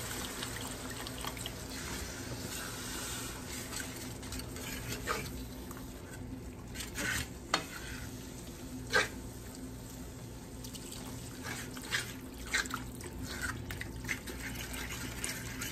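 Beef broth pouring into a skillet of flour-coated onions and mushrooms as it is stirred into gravy, with a metal whisk scraping and clicking against the pan every so often.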